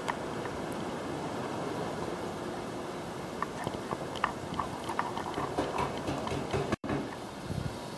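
Steady background hiss with a run of light clicks and taps from about three seconds in: footsteps and camera handling noise. The sound drops out for an instant near the end.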